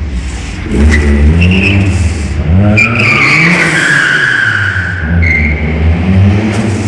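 Ford Sierra Cosworth's turbocharged 2.0-litre four-cylinder revving up again and again as the car accelerates, with tyres squealing on the concrete floor about a second and a half in, for over a second from about three seconds in, and briefly past five seconds.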